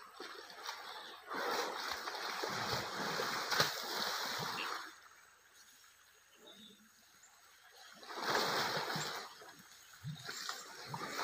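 Water splashing and sloshing as elephants roll and wallow in a shallow muddy stream, in a long spell of several seconds, a shorter one later, and smaller splashes near the end.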